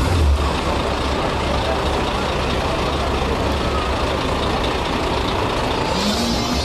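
Heavy truck's diesel engine running steadily: a deep, even rumble.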